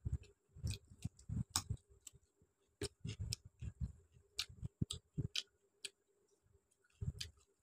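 Close-miked chewing of a raw carrot slice: irregular crisp crunches and wet mouth clicks, about two or three a second, each with a soft low thump.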